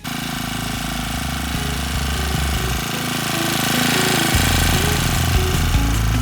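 Pazto BG435 four-stroke brush cutter engine running fast, a loud steady buzz with a low pulsing rumble. It starts suddenly and grows slightly louder about four seconds in.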